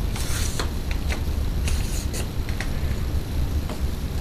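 A few light clicks and scrapes from an aluminium tripod tube being handled, over a steady low rumble.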